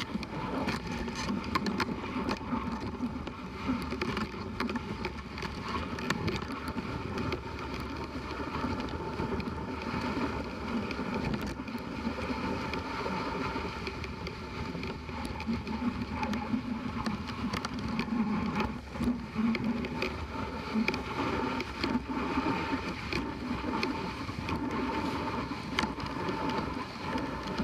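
Dog sled moving at a run over a packed snow trail: a steady rushing hiss of the runners on snow, with scattered small clicks and knocks.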